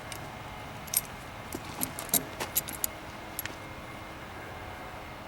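Light metallic clinking of nails and hand tools being handled: a scatter of small, sharp clicks between about one and three and a half seconds in.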